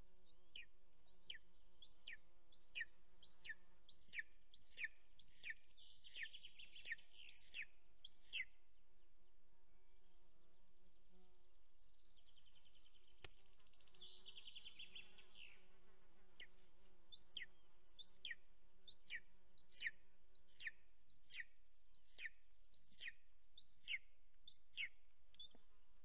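Golden eagle giving a long series of short, thin, high calls that slur downward, about two a second, in two bouts. A short buzzing comes in the pause between the bouts.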